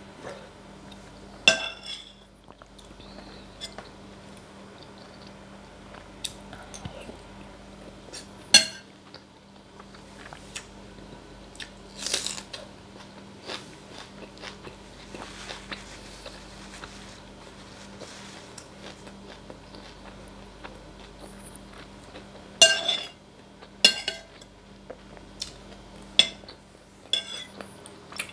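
Metal spoon clinking against a soup bowl every few seconds, with a cluster of clinks near the end, between chewing and eating of soup picked up close by a clip-on microphone.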